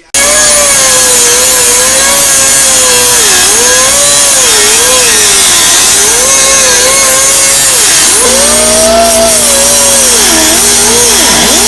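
A grinder with an abrasive cut-off wheel cuts through a steel exhaust pipe, very loud and continuous. The motor's pitch sags and recovers again and again as the wheel bites into the metal.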